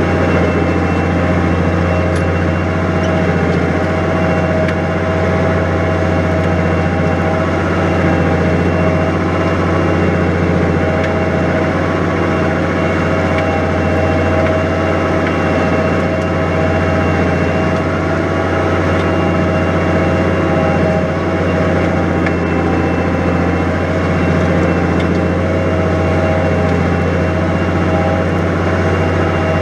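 New Holland 100-90 tractor's diesel engine running steadily at an even speed, pulling a plough through wet, heavy ground.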